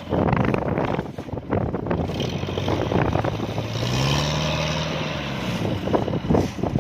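Diesel engine of a tracked farm machine labouring in deep mud. Its pitch rises and falls as it revs under load, about four seconds in, with scattered knocks through it.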